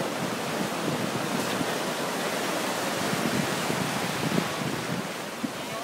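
Ocean surf washing up a shallow beach: a steady rush of breaking waves and foam, easing slightly near the end.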